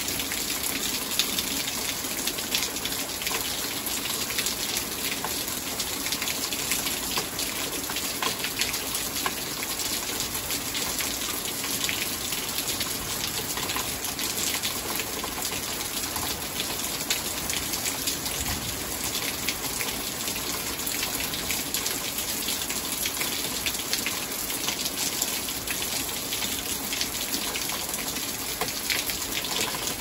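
Steady rain falling at night, an even hiss with many sharp individual drop hits.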